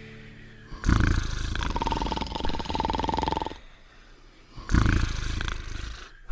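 Cartoon dog snoring: two loud, rasping snores about four seconds apart, the first trailing into a steady high whistle.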